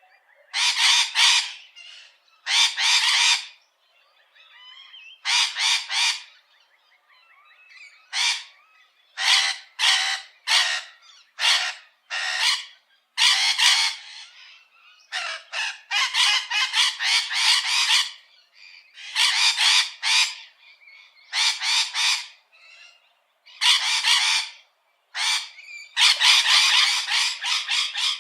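A bird giving a long, irregular series of harsh, noisy calls, some short and in quick runs, others drawn out for a second or more.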